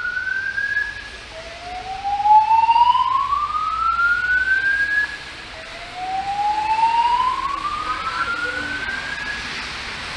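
Building fire alarm evacuation speakers sounding a whoop tone: a slow rising sweep, each about three and a half seconds long, repeated. The last sweep ends about nine and a half seconds in.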